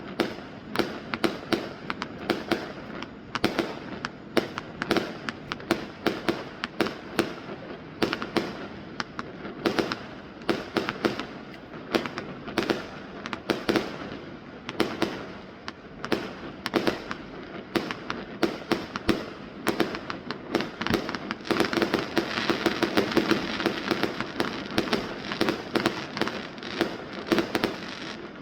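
Fireworks going off in rapid succession, a steady stream of sharp bangs and pops. About three-quarters of the way through, a dense, continuous crackling builds up under the bangs.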